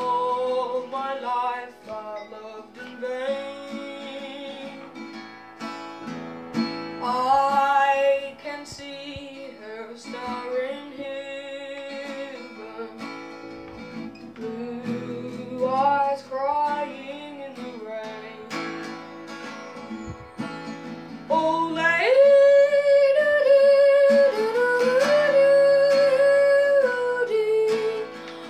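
Acoustic guitar strummed while a boy sings along. The voice holds long, wavering notes, louder in the last several seconds.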